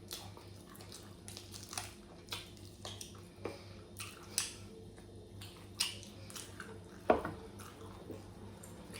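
Close-up eating sounds: chewing with irregular wet mouth clicks and smacks, one louder smack about seven seconds in.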